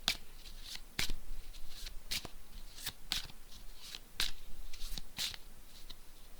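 A deck of tarot cards being shuffled by hand: repeated sharp card slaps, the strongest about once a second, with softer riffling between.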